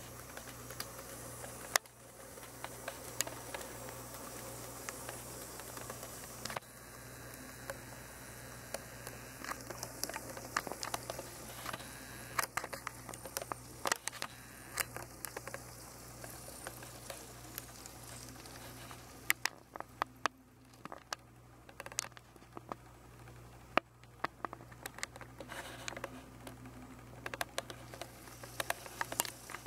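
Kato N scale E8A model diesel locomotives running on track: a faint steady hum with many irregular light clicks and ticks, busier in the second half.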